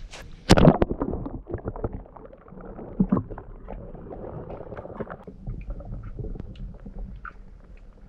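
A splash as the camera is plunged into spring water about half a second in, then muffled underwater gurgling with scattered clicks and knocks, heard through the submerged camera.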